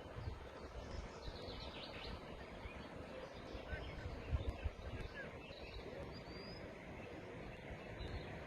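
Steady rush of river water with small birds chirping now and then, including a short cluster of chirps about a second in.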